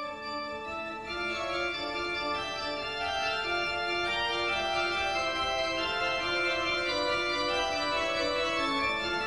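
Organ music playing a melody of held notes that change one after another.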